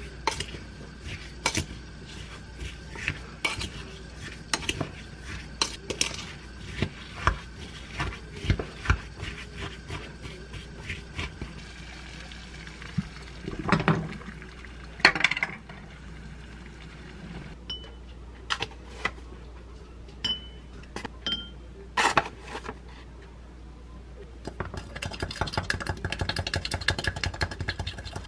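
A spoon stirring pomegranate seeds in a glass mixing bowl, with irregular clinks and scrapes against the glass. In the middle come a few scattered knocks and clatters. Near the end a long spoon stirs quickly in a drinking glass, a fast run of clinks.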